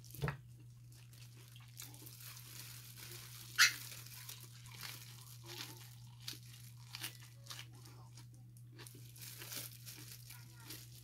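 Disposable plastic gloves crinkling as gloved hands handle food, with scattered crunches of eating and one sharp click about three and a half seconds in, over a steady low hum.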